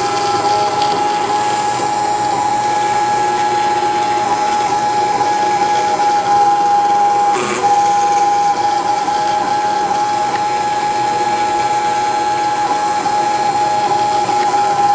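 Desktop CNC router spindle milling aluminium with an end mill: a steady high whine over the grinding chatter of the cutter, with a short glitch about halfway through.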